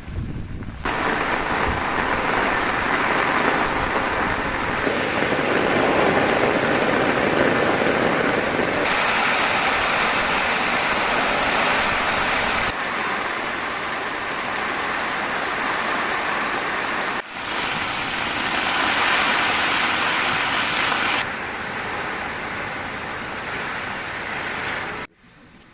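Heavy rain falling steadily, its loudness and tone changing abruptly several times.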